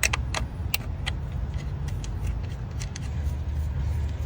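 A wrench loosening the retaining screw of a car's intake pressure sensor, heard as a string of irregular metallic clicks and taps over a steady low hum.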